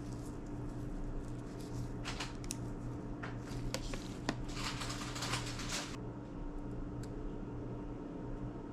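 Small clicks and scratchy scraping of tools and case parts being handled while an iPod classic is put back together, with a steady low hum underneath. The handling is busiest in the middle stretch and then dies down.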